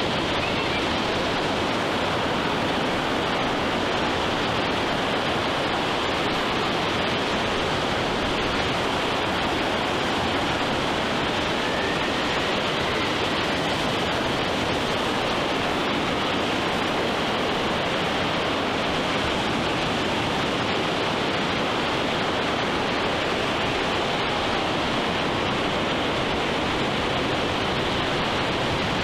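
Steady wash of ocean surf along a beach: an even rushing noise with no separate wave crashes standing out.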